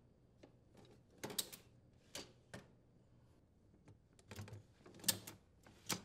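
Wine cellar racks, wooden slats in a metal frame, being slid back in on their metal slide rails: a string of short clicks and rattles, the loudest about a second and a half in and again around five seconds.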